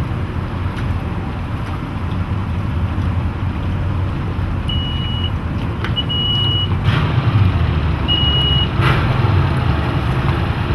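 Twin Mercury 225 OptiMax outboard motors running with a steady low hum at idle, getting louder about two-thirds of the way in. Three short high electronic beeps come partway through, with a few light knocks.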